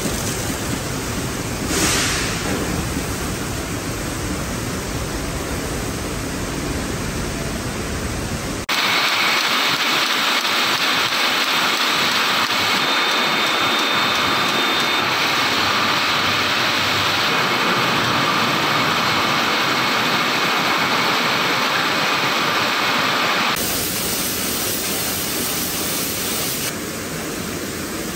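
Shrink sleeve labeling line running: a steady, even, rushing hiss of machinery and conveyors. About nine seconds in it changes abruptly, turning louder and brighter without its low rumble, and near twenty-four seconds in it changes back.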